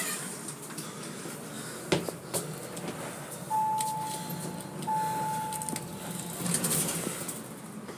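Elevator button panel giving two steady electronic beeps in a row, each about a second long, as floor call buttons are pressed, over the low hum of the elevator car. A sharp knock comes about two seconds in.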